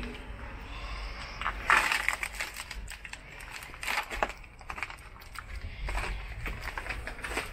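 Footsteps crunching over broken glass and debris on a bus floor: irregular crunches and crackles, the loudest about two seconds in.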